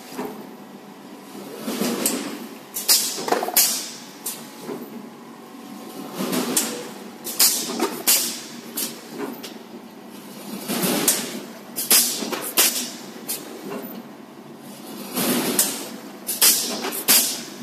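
Mechanical cup sealing machine running through its cycle: groups of several sharp metallic clacks and knocks come about every four and a half seconds, over a steady machine noise.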